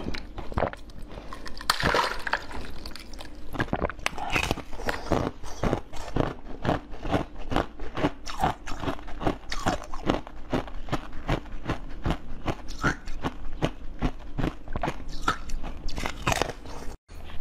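Close-up crunching and chewing of a brittle, crystalline blue food, a steady run of crisp crunches about two to three a second. The crunching breaks off briefly near the end.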